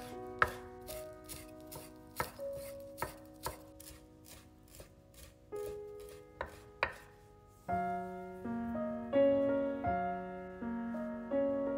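Knife chopping food on a cutting board in steady strokes, about two to three cuts a second, stopping about seven seconds in, over background music.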